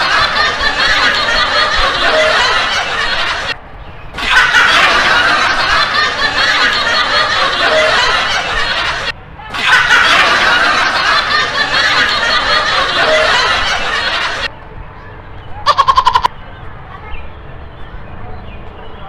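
Laughter, the same clip of about five seconds played three times in a row with short breaks between. It is followed by a brief run of rapid clicks with a tone, about sixteen seconds in.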